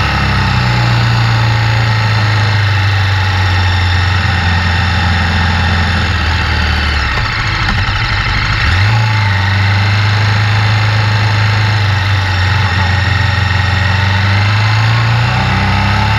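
KTM 1190 Adventure's V-twin engine running under way, with a steady rush of wind and road noise. A little past halfway the engine note drops away, then rises again as the throttle comes back on.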